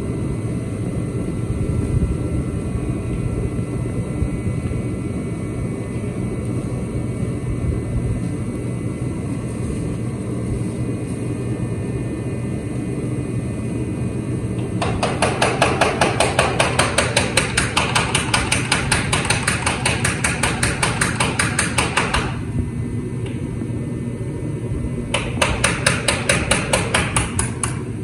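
Rapid hammer blows on metal, about six a second, in two runs: a long one past the middle and a shorter one near the end. They come over a steady low rumble.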